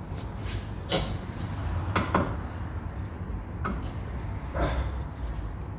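A few short metal knocks and clunks as an upper suspension arm's ball joint is worked into its seat in the wheel knuckle, about four in all, spaced a second or so apart.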